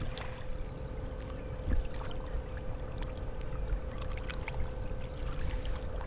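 Kayak motor running with a steady whine, over low wind and water noise and a few small splashes or knocks.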